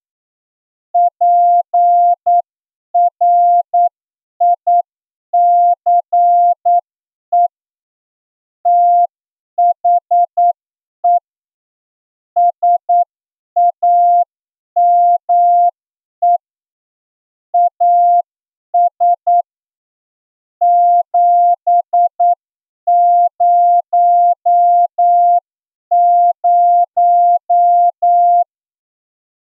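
Morse code sent as a single steady mid-pitched tone, keyed on and off in dots and dashes with short gaps between letters and longer gaps between words: a plain-language test passage for an amateur radio receiving exam.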